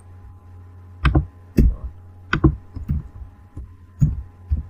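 Laptop keyboard keystrokes: about six separate key presses, spaced half a second to a second apart, over a steady low hum.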